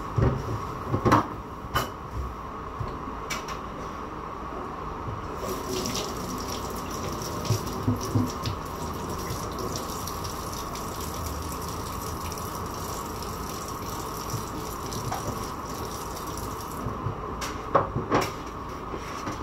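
Kitchen tap running into a sink for about ten seconds in the middle, with a few sharp knocks of kitchenware being handled near the start and again near the end.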